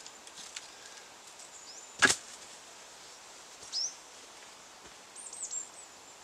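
A single loud wooden knock about two seconds in, a log being set down onto a stacked-log wall. Small birds give short high chirps later on.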